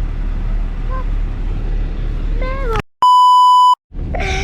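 A steady low bulldozer engine rumble is cut off about three seconds in by a loud, pure beep of under a second: an edited-in censor bleep over a word, with a moment of dead silence on either side. The engine rumble comes back near the end.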